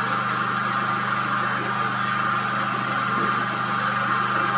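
Steady, even engine hum with a constant hiss over it.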